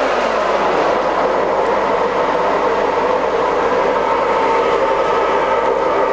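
TOS SN50B centre lathe running at its top spindle speed of 2000 rpm: a steady gear whine from the headstock over dense mechanical running noise. The pitch begins to sag slightly near the end.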